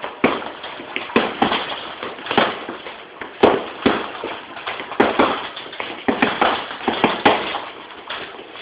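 A rapid, irregular run of sharp slaps and smacks, about two or three a second, with a few louder hits among them: strikes landing during Jeet Kune Do training drills.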